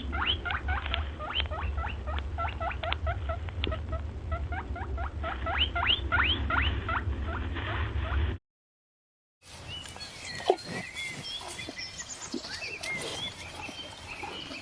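A small animal squeaking in quick rising chirps, several a second, over a low hum; about eight seconds in it cuts off, and after a short silence comes a quieter stretch of scattered faint chirps and a few knocks.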